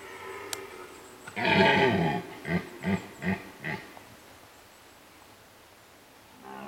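Red deer stag, a twelve-pointer, roaring in the rut: one long roar about a second in, followed by four short grunts in quick succession.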